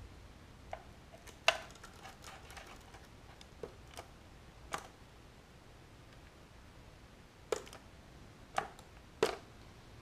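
About eight small, sharp clicks and taps at uneven intervals, the loudest about one and a half seconds in: small neodymium magnets and fingers handling a plastic power strip while the magnets are glued on.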